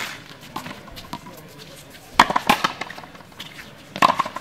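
Fronton rally: sharp cracks of the ball struck by rackets and smacking the court's walls and floor, in quick clusters about two seconds in and again near the end.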